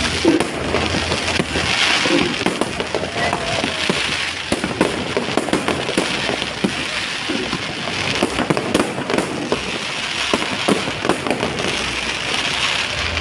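Fireworks going off, with a dense, continuous run of sharp pops and crackles.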